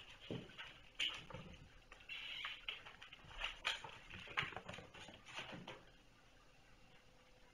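Kittens scampering and tussling: faint, irregular soft thumps and scuffling that die away about six seconds in.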